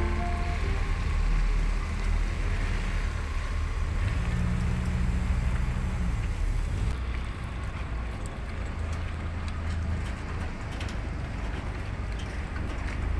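A passenger boat's engine running with a low, steady rumble as the boat comes in to the dock, with water and wind noise over it and a steadier hum for a couple of seconds about four seconds in.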